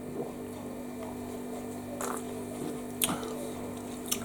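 A few faint clicks and swallows as someone drinks fizzy orange from a can, over a steady electrical hum.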